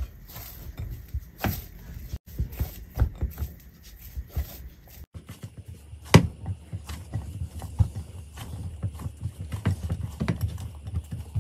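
Hands mixing and kneading pizza dough in a bowl: irregular pats, slaps and squishes.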